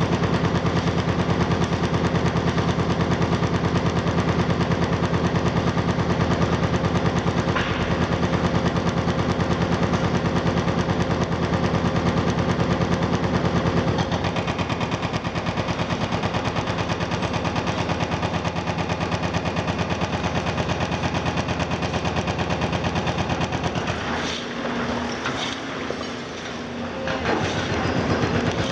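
Excavator-mounted hydraulic breaker hammering concrete in a rapid, steady stream of blows, stopping for a few seconds near the end and then starting again.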